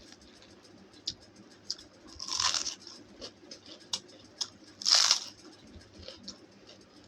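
Two loud crunching bites about two and a half seconds apart, with small clicks and faint chewing between them: a person eating crunchy food.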